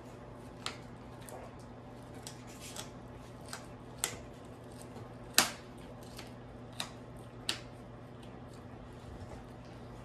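Belgian Malinois gnawing a chew bone: irregular sharp clicks and cracks of teeth on bone, about ten in all, the loudest about five seconds in.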